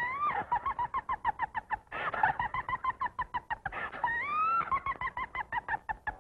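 Cartoon hen clucking: a quick run of short, pitched clucks at roughly seven or eight a second, broken by a rising-then-falling squawk at the start and another about four seconds in.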